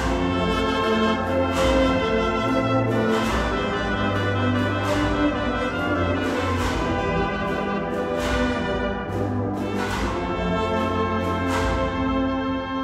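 An agrupación musical, a cornet, trumpet, trombone and tuba band with drums, playing a march. Sustained brass chords run throughout, the low brass comes in at the start, and struck accents fall about every second and a half.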